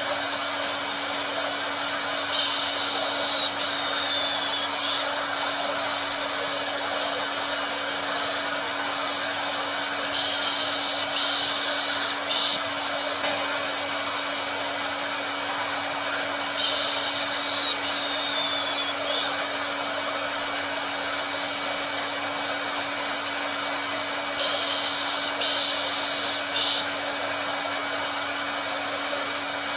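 Hair dryer running steadily: a continuous airy hiss over a low hum. A brighter, higher hiss swells for a couple of seconds about every seven seconds.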